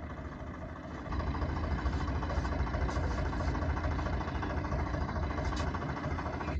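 An engine running steadily, getting louder about a second in, then stopping abruptly.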